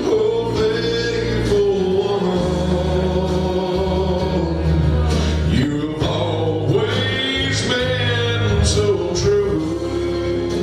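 A man singing a slow gospel song with long held notes over steady instrumental accompaniment, recorded live.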